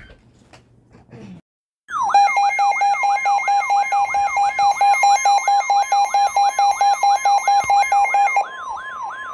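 Emergency alert attention tone: two steady tones under a siren-like pitch sweep that repeats about three to four times a second. It starts abruptly about two seconds in, and near the end the lower steady tone drops out while the higher tone and the sweeps carry on. It signals the start of a new weather warning broadcast.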